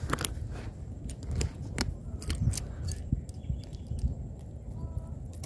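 Metal fishing pliers clicking and scraping at a caught snakehead's mouth while the rubber frog lure is unhooked, a series of sharp clicks mostly in the first three seconds over low handling rumble.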